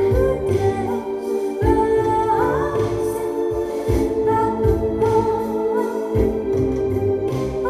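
Music playing loudly, with sustained sung or choir-like voices over heavy bass drum hits.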